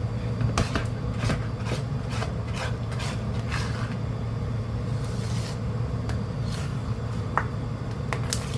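A spatula scraping and stirring a thick, sticky glutinous-rice and sugar mixture in a cooking pan, in irregular strokes, over a steady low hum.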